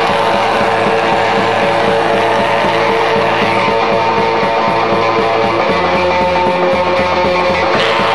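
Black metal song: distorted electric guitars over fast, steady drumming.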